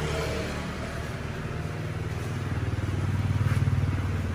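Small motorbike engine running close by, with a low, fast, even beat that swells to its loudest about three and a half seconds in and then eases off.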